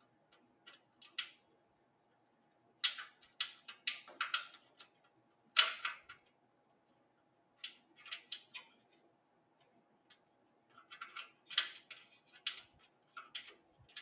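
Irregular small metallic clicks and light rattles in several short clusters, as a screw and the steel drive bracket are handled while the screw is lined up with its hole in a desktop computer case.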